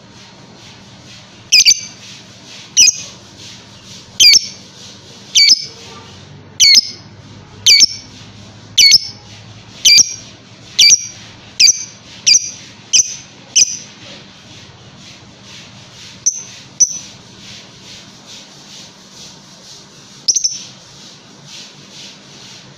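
Fischer's lovebird giving a long series of loud, shrill squawking calls, about one a second at first, then quicker, before a pause and three more spaced calls near the end, over a fast faint chatter.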